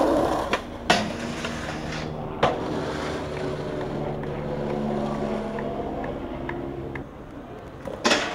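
Skateboard wheels rolling over pavement with a steady hum, broken by sharp clacks of the board about one and two and a half seconds in and a louder hit near the end.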